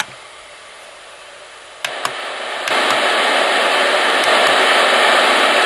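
Homedics Sound Spa Rejuvenate sound machine playing its white noise setting through its small speaker: after a faint hiss, a click about two seconds in and a steady loud hiss comes on, stepping up in level a second later. It sounds a bit like interference on an untuned television set.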